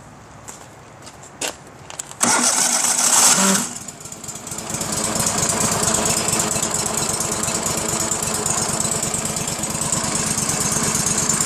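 Stump grinder engine being started: a couple of clicks, about a second and a half of starter cranking, then the engine catches and settles into a steady run from about four seconds in.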